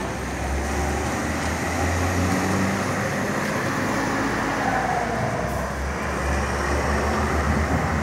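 Low, steady engine rumble of a truck on the street, over general traffic noise.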